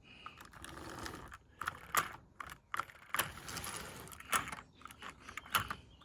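Small plastic-and-metal clicks and rattles of a 00 gauge model locomotive being handled on its track, with two short stretches of rasping noise between the clicks.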